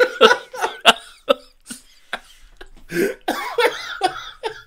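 A man coughing and laughing in short, sharp bursts: a quick run in the first second or so, then another cluster about three seconds in.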